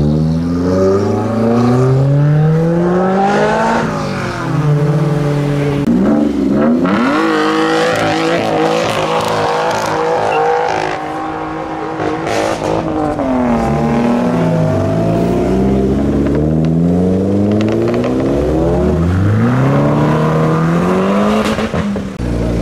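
Modified cars accelerating away, engines revving hard with the note climbing again and again as they pull through the gears, a brief drop and climb about two-thirds of the way through, and a few sharp cracks along the way.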